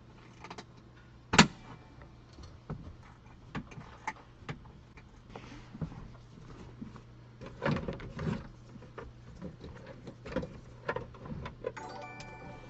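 Irregular clicks and knocks of tools and car parts being handled, with one sharp knock about a second and a half in and a busier patch of clatter later on, over a steady low hum. A brief pitched squeak comes near the end.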